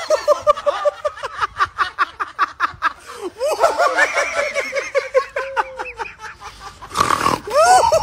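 Hard, high-pitched laughter in rapid runs of short 'ha' pulses, pausing briefly about three seconds in, with a brief noisy burst about seven seconds in.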